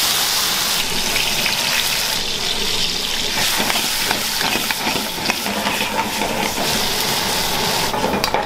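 Food sizzling in pans over gas burners, a steady hiss that is strongest in the first couple of seconds, with small clicks and scrapes from a spoon stirring in an aluminium pan.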